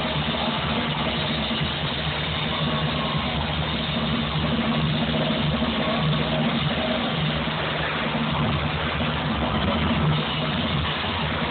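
Live rock drum solo heard from far back in an arena: a dense, steady low rumble of rapid drumming in which no single hits stand out.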